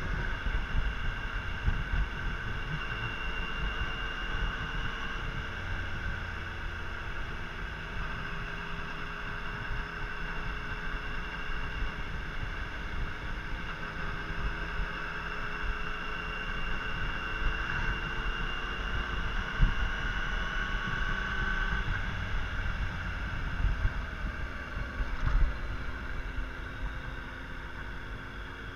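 Yamaha Tracer 900's three-cylinder engine running on the road, mixed with heavy wind rush on the microphone, the engine tone easing as the bike slows. Two sharp knocks stand out, the louder about three quarters of the way through.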